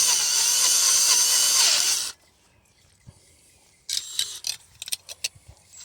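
Power drill running as it bores into a plate, stopping suddenly about two seconds in; a few light clicks and rattles follow.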